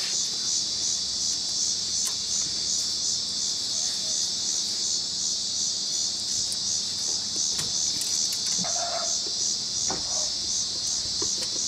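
Steady high-pitched insect chirping, pulsing about three to four times a second, with a few faint clicks.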